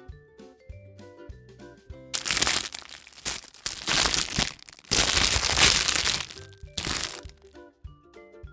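Light background music with mallet-instrument notes, and from about two seconds in, loud crinkling and crackling of a surprise egg's wrapper being torn open and crumpled, in four bursts over about five seconds.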